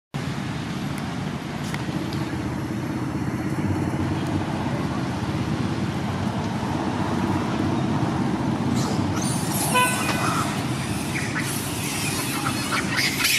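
A motor vehicle running steadily close by, with a short horn toot about ten seconds in. Harsh high-pitched sounds come in near the end.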